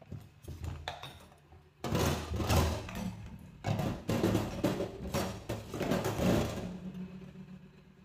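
Tap water splashing over dishes being rinsed in a stainless steel sink, in two loud spells, with ceramic crockery knocking as it is handled and stacked.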